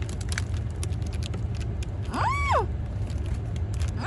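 Someone chewing a mouthful of sandwich, with faint scattered crunching clicks over a steady low hum. A brief high tone rises and falls once about two seconds in.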